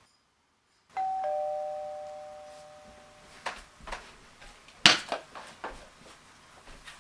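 Two-note ding-dong doorbell chime, a higher note then a lower one, ringing out and fading over about two seconds. It is followed by a few sharp knocks and thuds, the loudest about five seconds in.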